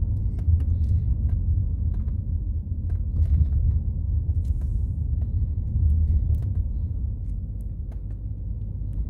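Steady low rumble of tyres and engine heard inside a moving car's cabin on a rough, potholed lane, with scattered small clicks and knocks from the car going over the uneven surface.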